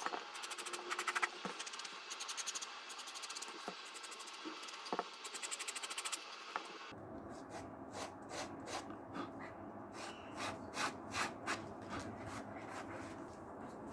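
Sandpaper rubbed back and forth along the edges of a thick leather wallet, sanding the edges smooth: quick dense strokes at first, then slower, separate strokes about halfway through.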